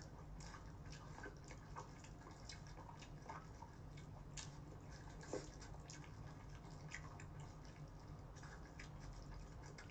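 Faint, scattered wet clicks and squishes of chopsticks stirring sauce-coated cold noodles in a stainless steel bowl, with some chewing.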